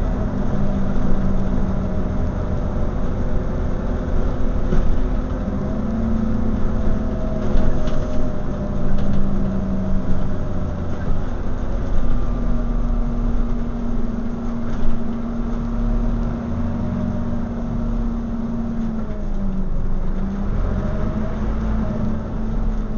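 Scania OmniCity single-deck bus running on the road, heard from inside the passenger saloon: a steady low engine drone with a fainter whine that rises and falls as the bus speeds up and slows.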